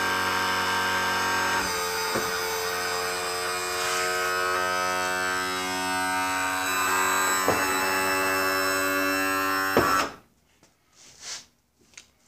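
Electric power trim and tilt motor of a 1989 Evinrude 175 HP V6 outboard running steadily, driving its hydraulic pump to tilt the motor down, with a slight change in pitch as it goes. It cuts off suddenly about ten seconds in, once the motor is down.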